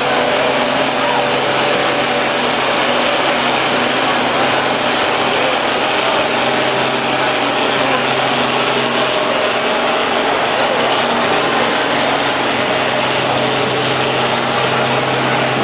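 Red International Harvester tractor's engine running loud and steady under full load as it pulls the weight-transfer sled in a stock-class tractor pull.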